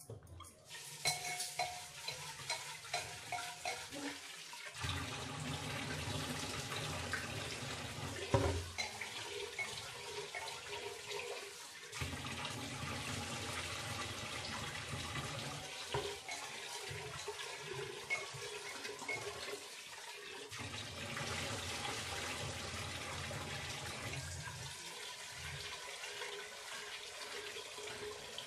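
Fish curry boiling in a pot: steady bubbling with many small pops, over a low rumble that sets in about five seconds in.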